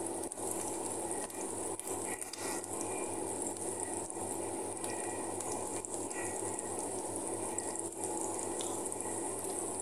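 Chopped garlic and onion sizzling steadily in hot oil in a frying pan, with faint scattered crackles, while they cook until golden.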